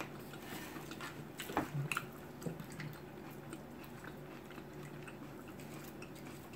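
Eating sounds: chewing of pastrami sandwich and fries, with a few short soft clicks and smacks in the first three seconds, then fainter, over a low steady hum.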